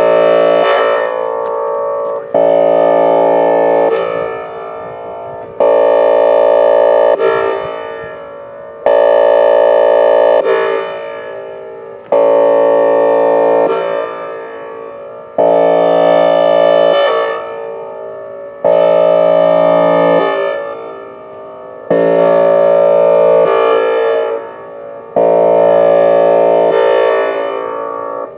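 Whelen Vortex R4 electronic outdoor warning siren sounding its Air Horn signal: a loud horn tone that starts abruptly, holds about a second and a half, then fades away in echo, repeating about every three seconds.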